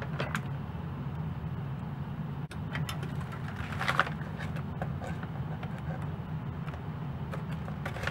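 Foil Mylar bag crinkling in short bursts as it is pressed into an impulse heat sealer and then handled, over a steady low machine hum.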